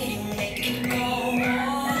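Song playing as dance music: a sung vocal line gliding up and down in pitch over a sustained low note.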